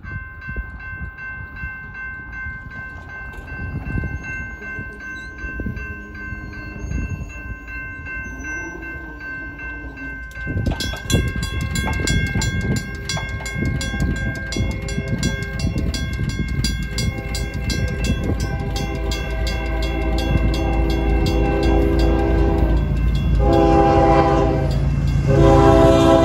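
Railroad crossing bells ring without pause, starting as a steady electronic tone and becoming a louder, faster run of strikes from about ten seconds in. An approaching freight train's locomotive horn grows louder over a rising low rumble, sounding loudest in two blasts near the end.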